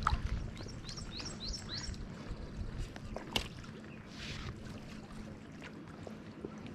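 Outdoor wind and water noise with a faint steady hum. A bird calls five quick rising chirps in the first two seconds, a sharp click comes about three and a half seconds in, and a short hiss follows.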